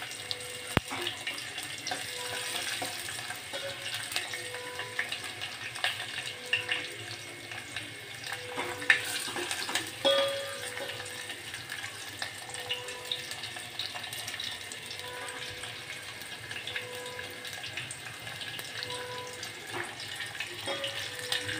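Tempering for dal sizzling in hot oil in a small steel pot: garlic, green chillies, curry leaves and spices frying on a low flame, with a steady sizzle and scattered small crackles. A steel ladle stirs and taps against the pot now and then.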